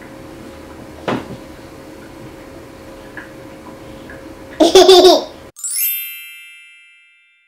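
A short, loud burst of a young child's laughter about four and a half seconds in. Then a bright, sparkling chime sound effect that rings and fades away.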